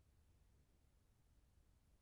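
Near silence: faint, steady low room tone.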